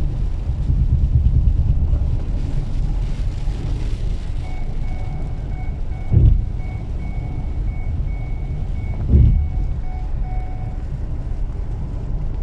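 Steady low rumble of a vehicle being driven. About four seconds in, a regular electronic beep starts, sounding about twice a second, and stops near the end. There are two dull thumps, one in the middle and one about three seconds later.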